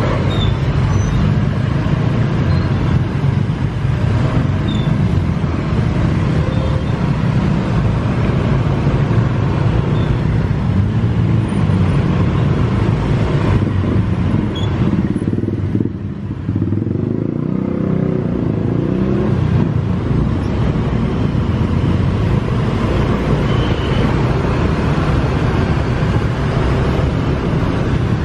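Steady running noise of a Yamaha NMAX scooter being ridden in dense traffic, its engine mixed with road noise and the engines of other scooters close around. The noise eases briefly about sixteen seconds in, then picks up again.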